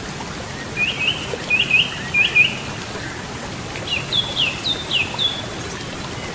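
Steady rushing of river water, with a songbird calling over it in two phrases. The first phrase is a run of quick paired chirps about a second in; the second, starting about four seconds in, is a few notes that drop sharply in pitch.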